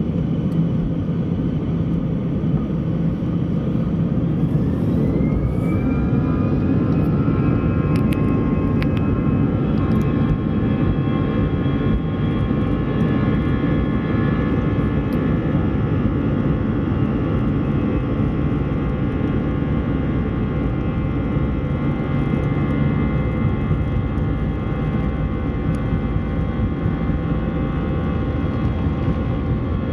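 Airbus A320 jet engines heard from inside the cabin: a heavy low rumble, with a whine that rises about five seconds in and then holds steady as the engines spool up to takeoff thrust for the takeoff roll.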